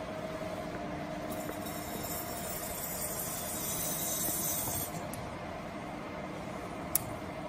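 Valve on the lid of a lab vacuum homogenizer's main vessel opened to suction, hissing for about three and a half seconds before cutting off suddenly. A steady machine hum runs underneath, and there is one sharp click near the end.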